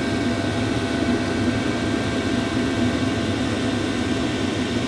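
Chinese diesel air heater running steadily at full heat, its combustion fan and burner making an even rumble with a faint constant whine, heard close up.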